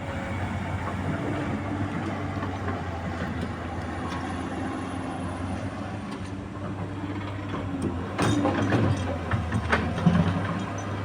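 Komatsu PC200 excavator's diesel engine running steadily with a low hum. About eight seconds in comes a louder stretch of sharp knocks and scraping.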